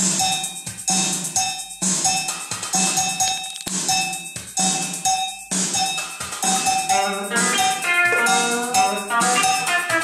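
Electronic music with a steady drum beat. A melody of bright pitched notes comes in about seven seconds in.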